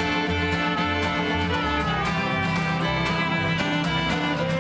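Fiddle (violin) bowed in long, held notes with some sliding between pitches, over a lower accompanying instrument.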